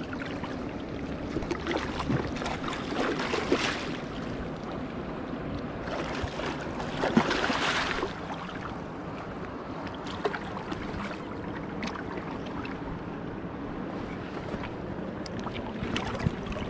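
Shallow river water flowing and lapping over rocks at the water's edge, with two louder rushing stretches about three and seven seconds in.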